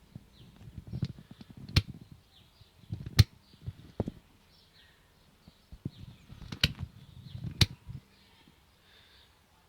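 Starter circuit of a 2005 Kawasaki ZX-6R 636 clicking when the starter button is pressed: three bursts of rapid clicks with sharp clacks, and the engine never cranks. The bike goes dead on the button instead of turning over.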